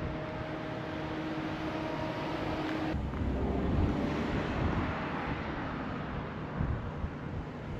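Steady rush of vehicle and wind noise with a steady hum that cuts off suddenly about three seconds in.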